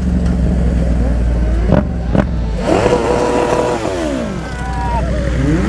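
Motorcycle engines: a low, steady rumble from the Yamaha MT-07's engine, with a few sharp knocks about two seconds in. Partway through, a motorcycle engine revs up and then drops steadily in pitch.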